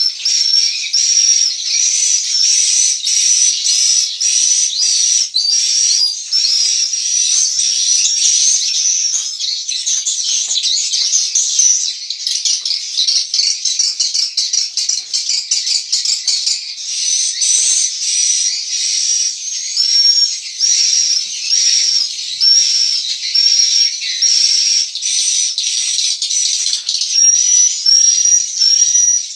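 Swiftlets twittering: a dense, unbroken chorus of high chirps, with one strong chirp repeating about every two-thirds of a second.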